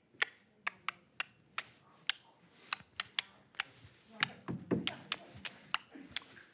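Sharp clicks in an uneven rhythm, about two or three a second, with a brief low voice sound about four seconds in.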